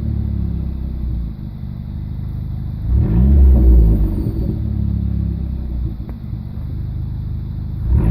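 Car engine idling and blipped twice, about three seconds in and again right at the end, each rev rising in pitch and falling back. A faint high whistle comes in with each rev, which the owner suspects is a vacuum leak.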